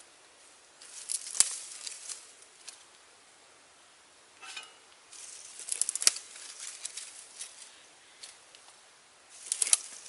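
Three short bursts of dry crackling and rustling, as twigs and dead leaves on the ground are handled.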